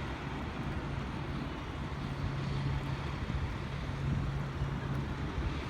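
A steady low engine hum with wind noise on the microphone.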